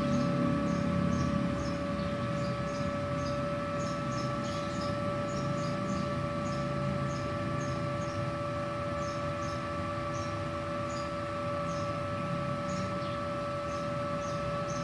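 Multipro TIG 200A-SA inverter welder switched on and idling, its cooling fan and electronics giving a steady hum with a constant whine. Faint high chirps repeat irregularly a few times a second over it.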